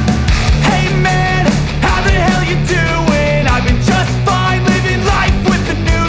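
Background rock music with a driving beat, distorted guitars and a melodic line.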